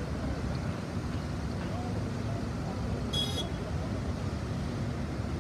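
Steady traffic rumble of a busy city avenue, with faint voices of passers-by. A brief high-pitched squeal or whistle comes about three seconds in.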